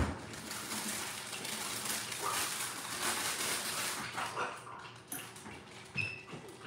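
A dog whimpering a few times, with a short high whine about six seconds in, over a steady hiss.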